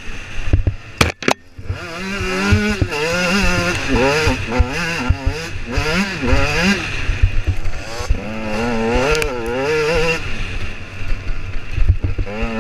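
A 2009 KTM EXC 125 enduro motorcycle's two-stroke engine being ridden hard. The revs climb and fall again and again as the throttle is worked over the rough track, with a brief drop off the throttle about a second in. Wind noise and rumble run under it.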